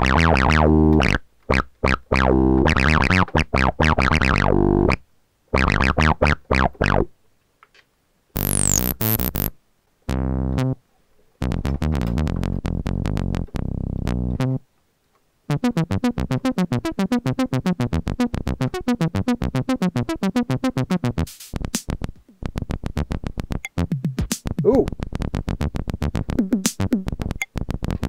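DinoPark DSP synthesizer's DrumNBass engine playing one preset after another, with short gaps of silence between them. It opens on strong low synth notes, has a high falling sweep about nine seconds in, then runs into a long stretch of fast, evenly repeated short hits.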